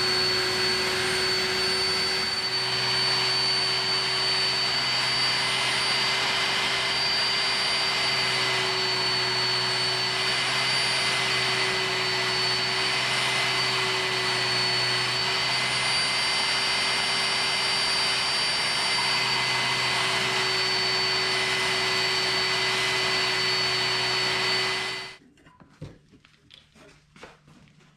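Handheld belt sander, mounted upside down in a stand, running steadily with a whine while a piece of saw-blade steel is ground against the belt, throwing sparks. It cuts off suddenly near the end, leaving a few faint knocks.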